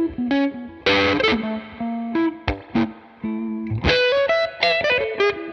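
Background music led by an electric guitar, a run of plucked notes changing pitch.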